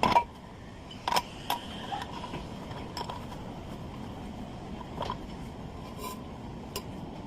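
A handful of sharp metallic clinks, metal tapping on metal with a brief ring, loudest right at the start and again about a second in. They are spread irregularly over a steady low workshop background.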